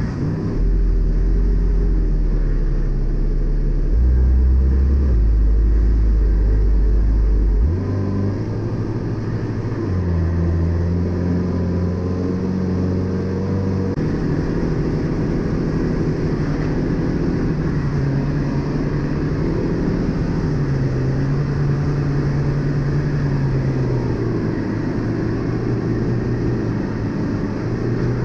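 Tecnam P2008's Rotax 912 four-cylinder engine and propeller droning steadily in flight, heard from inside the cockpit. The low hum steps in pitch a few times and is a little louder over the first several seconds.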